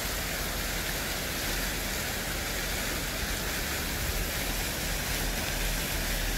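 Steady outdoor background noise: a low, uneven rumble under an even hiss, with no distinct events.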